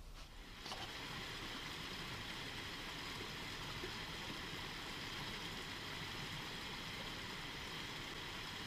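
Mountain stream rushing and splashing over rocks in a steady, even wash of water noise, starting about a second in.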